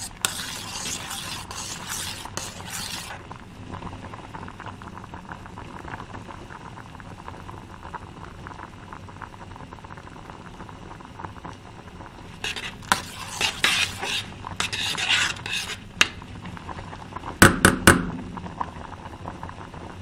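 A utensil stirring food in a cooking pot, scraping against the pot in two stretches, with steady sizzling and bubbling of the cooking food in between. Near the end, three sharp knocks of the utensil against the pot are the loudest sounds.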